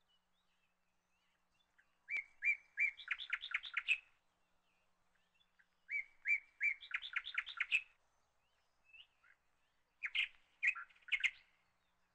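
House sparrows chirping in three bouts about four seconds apart. Each bout is a few single chirps running into a quick string of notes.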